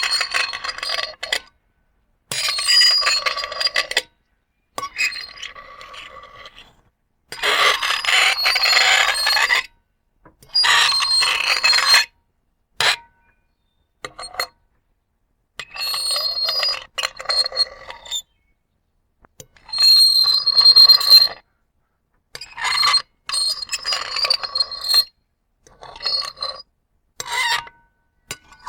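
Metal fork scraped across a ceramic plate, producing a squealing, ringing screech. There are about a dozen separate strokes of one to three seconds each, with short pauses between them.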